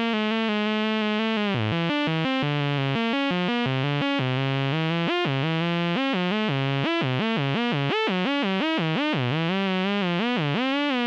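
Behringer 2600 synthesizer oscillator playing a buzzy tone rich in overtones, its pitch driven by the sample-and-hold through the lag processor. At first it jumps between random pitch steps. From about a second and a half in it slides smoothly up and down between random pitches, as the lag rounds off the steps.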